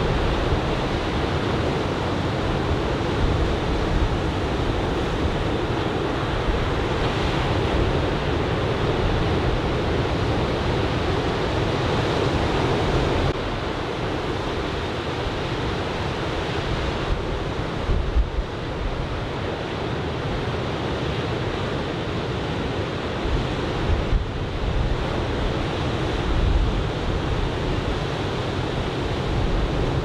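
Steady rush of chest-high typhoon swell breaking on the beach, with wind buffeting the microphone in low rumbling gusts a few times in the second half.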